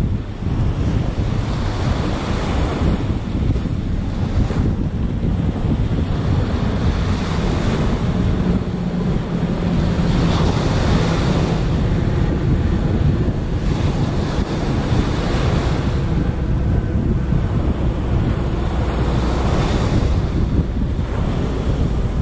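Small waves breaking and washing up a sandy beach, swelling every few seconds, with wind rumbling on the microphone.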